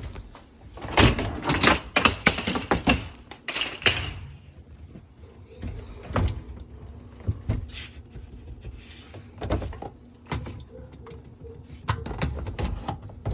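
Dishwasher door and racks being handled: a dense run of clattering knocks and rattles in the first few seconds, then scattered single clunks.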